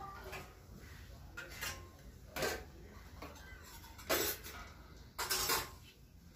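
Stainless steel plates and bowls clinking and clattering as food is served onto them, with three louder clatters at about two and a half, four and five seconds in.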